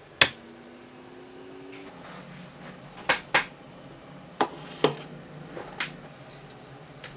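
A rocker switch clicks on, and the fume extractor's ducted fan starts: a faint rising whine as it spins up over about a second and a half, settling into a low steady hum. Several clicks and knocks follow as the flexible extraction arm is handled.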